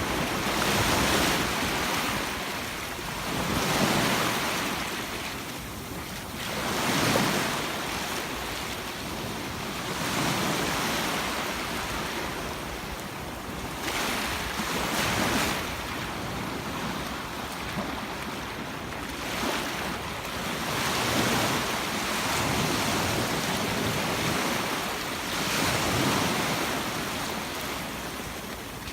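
Sea waves breaking on a beach in swells that rise and fade every few seconds, with wind on the microphone.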